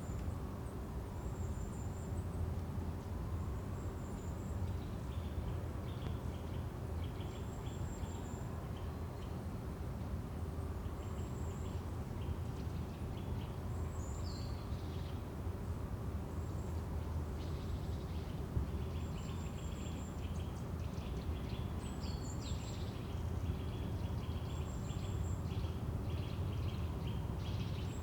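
Forest ambience: a steady low rumble under short high chirps that repeat every second or two, with faint bird calls and two brief falling calls, one midway and one later.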